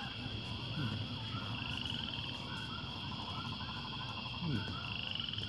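Outdoor background with faint, repeated short chirping calls, and twice a brief, fast trill that rises in pitch, over a low murmur.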